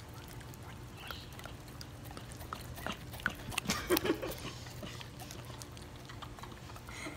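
A German shorthaired pointer licking and smacking its mouth sticky with peanut butter: short wet clicks and smacks, thickest and loudest about three to four seconds in.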